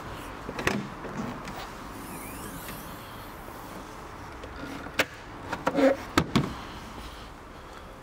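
Car boot being opened by hand: a sharp latch click under a second in, then a quick cluster of hard clicks and knocks as the boot's hinged roof-storage divider is handled.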